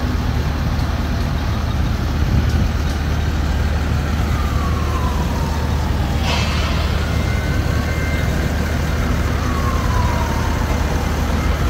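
Steady diesel engine rumble of a trailer-mounted concrete pump. A faint siren wails down, then up and down again, through the middle. A sharp clank comes about six seconds in.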